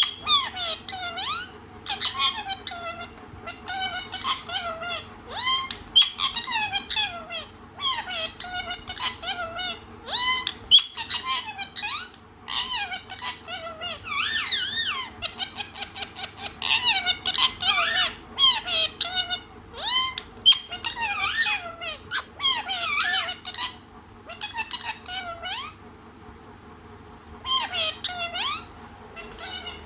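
Pet parrot chattering: rapid runs of high-pitched, squeaky chirps and warbles in bursts with short pauses, a lull near the end, then one more burst. A steady low hum runs underneath.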